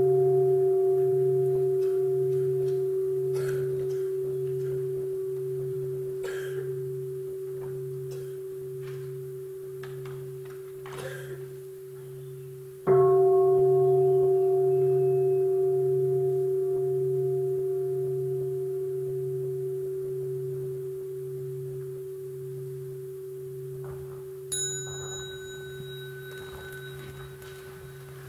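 Large meditation bowl bell ringing and slowly fading, with a deep, slowly pulsing hum beneath its main tone. It is struck again about 13 seconds in, the bell invited to close the talk. A short, bright high clink sounds near the end.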